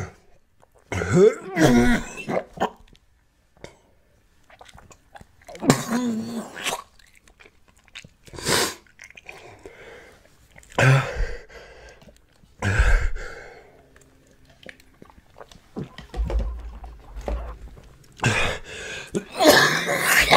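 A man chewing, coughing and clearing his throat in short bouts every few seconds while eating catfish dough bait, gagging at its foul taste; the loudest bout comes near the end.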